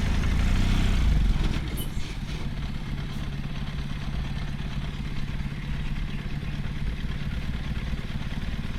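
A motor vehicle's engine running, louder for about the first second and a half, then dropping to a lower, steady rumble. A few light clicks come about two and three seconds in.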